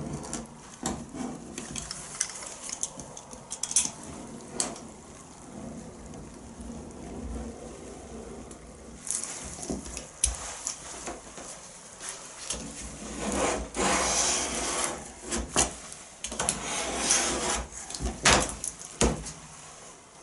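A sharp blade cutting through the old, brittle rubber seal around a classic Mini's rear window glass: irregular scraping and rubbing strokes with sharp clicks, in heavier bursts in the second half.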